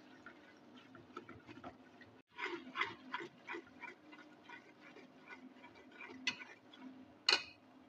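A steel ladle stirring and scraping ginger-garlic paste as it fries in ghee in an aluminium pressure cooker: faint, irregular short scrapes with a light sizzle and a louder scrape near the end.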